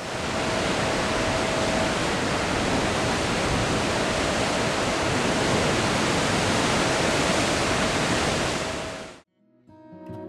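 Waterfall: a steady, even rush of falling water that cuts off suddenly about nine seconds in.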